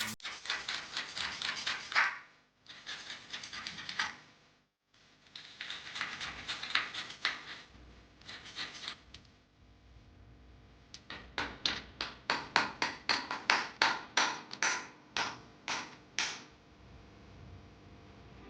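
Sandpaper rubbed by hand over a painted bicycle rim, taking the paint off. The strokes start as rough continuous spells, then near the end become separate quick back-and-forth strokes, about three a second.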